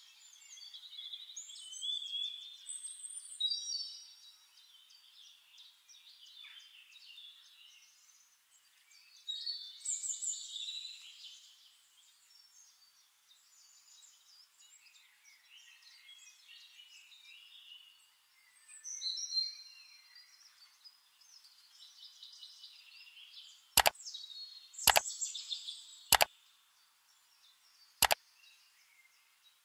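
Birds chirping and calling in short, quick phrases, thin with no low end. Four sharp clicks come near the end, the button-click effects of a like-and-subscribe animation.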